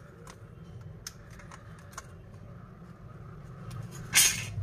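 Scattered light clicks and crinkles of hands handling a phone and a crumpled plastic sheet, with one brief louder rustling scrape about four seconds in.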